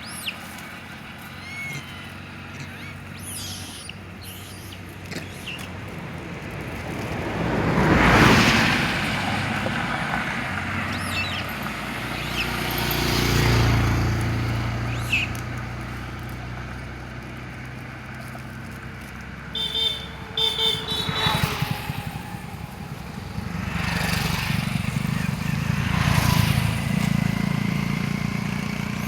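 Road vehicles passing one after another, each swelling and fading, with a few short horn toots about two-thirds of the way through.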